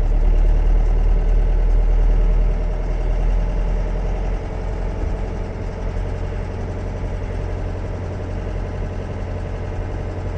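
John Deere 6420 tractor's diesel engine running steadily, its note dropping a little about four seconds in.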